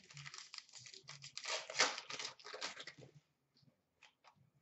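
Trading-card pack wrapper being torn open and crinkled by hand: irregular crackling rustles for about three seconds, then a few faint ticks.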